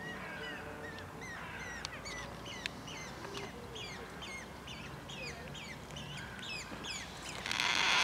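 Birds chirping: short, sharp, high calls repeated about three times a second, with a brief rush of noise near the end.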